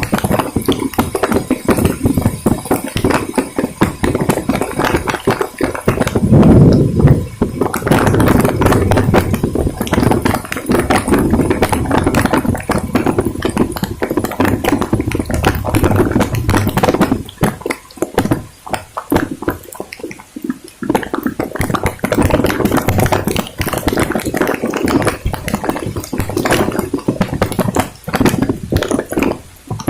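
Heavy rain and wind striking close to the microphone: a dense, irregular patter of taps with a low rumbling buffet underneath, loudest around six to seven seconds in.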